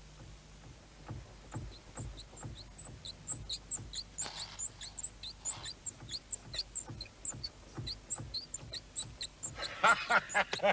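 Abnormal noise from a moving car: a short, high chirping squeak repeats in an even rhythm, about two a second at first and getting faster as the car gathers speed, over low running noise. Near the end it turns into a louder squeal.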